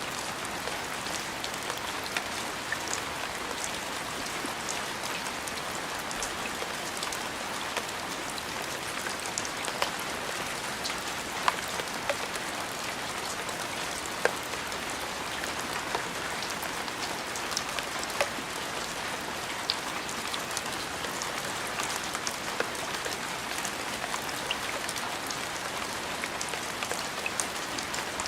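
Steady rain falling, an even hiss scattered with the sharp ticks of individual drops striking a surface.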